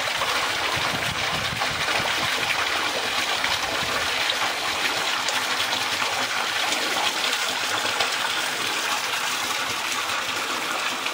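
Water pouring steadily from a stone village fountain into its trough.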